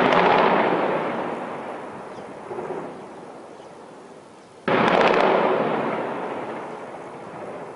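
Two heavy-weapon blasts about five seconds apart, each starting suddenly and rolling away in a long echo that fades over several seconds.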